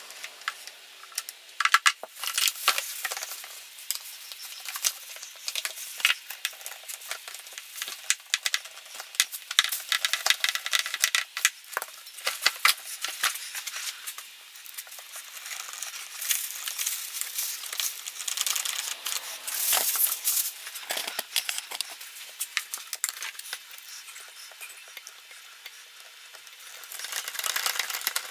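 Plastic bag crinkling and rustling, with many small clicks and taps of plastic parts and tools being handled while the blower's starter housing is put back together.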